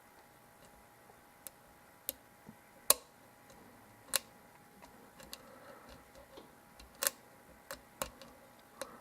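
Lock pick and tension wrench working the pin stacks of a Zeiss Ikon euro cylinder during single-pin picking: scattered sharp metallic clicks and ticks at irregular intervals, the loudest about three seconds in.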